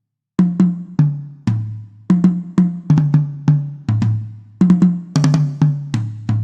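Sampled drum kit from the Sonar drum set for eXtreme Karaoke playing tom fills. Quick runs of hits step down in pitch from high to low toms, repeated several times, with a few brighter snare or cymbal-like hits mixed in near the end.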